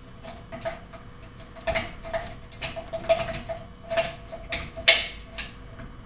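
Repeated small mechanical clicks, about two or three a second, from the hose-pulling device's rotating motor unit being fitted and adjusted on its mounting bracket. The clicks grow louder in the second half.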